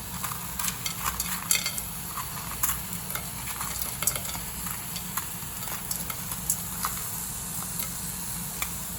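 Food sizzling in a frying pan while being stirred, with irregular clicks and scrapes of a utensil against the pan over a steady hiss.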